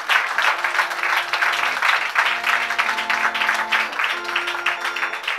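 Applause after a choir's song, thinning out near the end, while an instrument plays held chords underneath.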